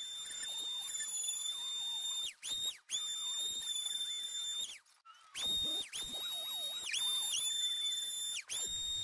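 Corded electric vibratory sander with 320-grit paper running with a steady high whine as it sands rust and flaking paint off a truck's steel roof. Its pitch dips briefly several times, and it cuts out for about half a second near the middle before starting again.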